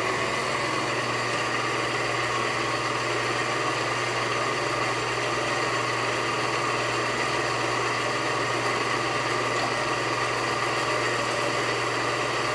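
1990 Pacific Tri-Arco 35-6 hydra-mechanical press brake running at idle, its drive giving a steady hum with no stroke of the ram.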